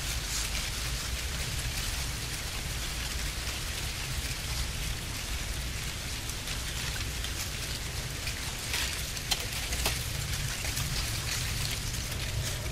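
Dry cornstalks and leaves rustling and crackling in a dense, rain-like patter of fine clicks, over a steady low rumble.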